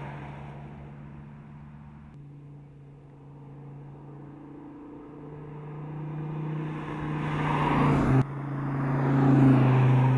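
Dodge Viper SRT's 8.4-litre V10 engine running at a steady, even pitch as the car drives by, fading away at first and then growing louder as it comes closer. A sudden cut about eight seconds in is followed by another pass that swells to its loudest and begins to fade.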